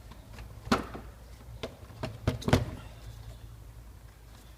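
A few short, sharp knocks as the plastic engine cover is moved aside and set down, two of them close together about halfway through. Underneath is the steady low hum of the idling VW Polo 1.4 engine, which has a misfire on cylinder 4.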